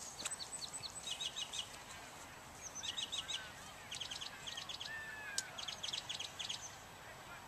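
Small birds chirping in quick runs of short high notes, with a few sliding whistled notes, over faint outdoor background noise. A single sharp click about five seconds in.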